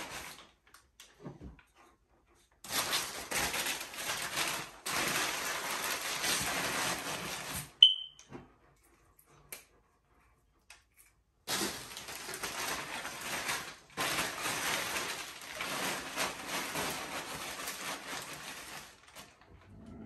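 Packing paper crumpling and rustling as bottles are wrapped, in two long stretches with a quiet gap between. Between them comes one sharp clink with a brief ring.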